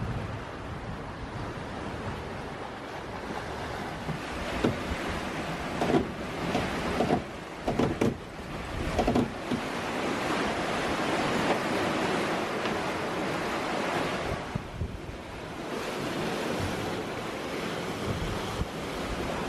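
Sea water rushing and splashing along the hulls of a sailing catamaran under way, with wind on the microphone. A few louder splashes come between about four and nine seconds in.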